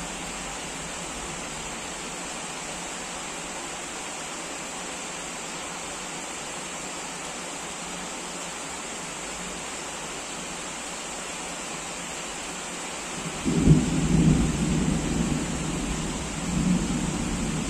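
Heavy rain falling steadily, then a sudden loud clap of thunder about three-quarters of the way through that rumbles on and swells again near the end.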